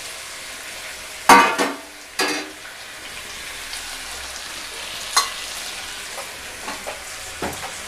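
Mud crab with onion, tomato and green chillies frying in a stainless-steel pan: a steady sizzle, with two brief louder sounds a little over a second in and just after two seconds, and a sharp tick about five seconds in.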